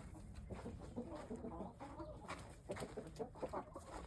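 Hens clucking softly, a scatter of short, faint calls.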